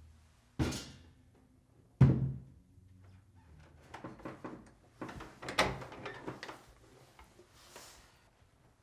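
Two heavy knocks on a door, about a second and a half apart, then a run of clicks and rattles as the latch and handle are worked and the door is opened.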